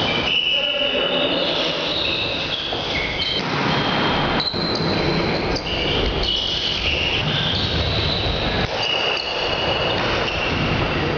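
Sports shoes squeaking on an indoor court floor in many short high squeals, with a few sharp slaps of a volleyball being hit during a rally, in a large echoing hall.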